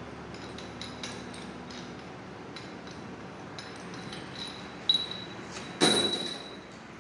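Small metallic clicks and clinks as the four loosened steel bolts on an Ashok Leyland truck's crown wheel and pinion carrier are spun out by hand, then two sharp metal clanks that ring briefly, about five and six seconds in, the second the louder.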